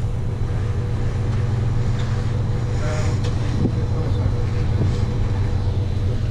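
Steady low drone of a ship's engines and machinery, heard from inside the wheelhouse while under way in a rough sea.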